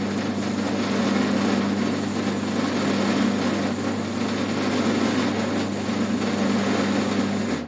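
Electric motor driving a Mellor lathe of about 1941 through belts and pulleys, running in back gear so the chuck turns very slowly with high torque. It makes a steady hum with a strong low tone and cuts off suddenly near the end as the machine is stopped.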